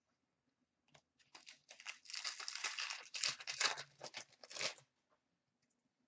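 A foil wrapper on a 2016-17 Upper Deck Series 2 hobby hockey card pack crinkling and being torn open. The crackly ripping starts about a second in and stops after about four seconds.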